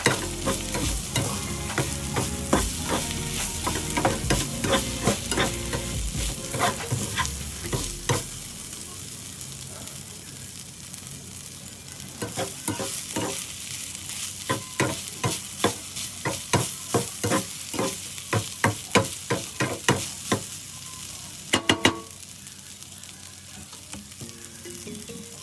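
Garlic rice stir-fried in a hot pan: oil sizzling under a run of sharp scraping and clacking strokes from a metal spatula, at times two or three a second.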